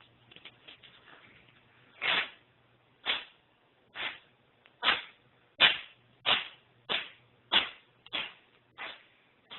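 Devon Rex cat sneezing about ten times in a row, starting about two seconds in, each sneeze short and sharp and the run coming a little faster as it goes on. The fit of sneezing comes from a problem in his nasal cavities.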